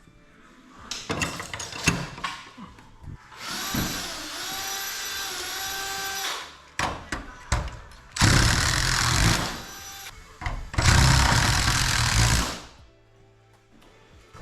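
Cordless power drill driving fasteners: a few knocks, then the drill running steadily with a whine for about three seconds, then two longer, louder and rougher runs.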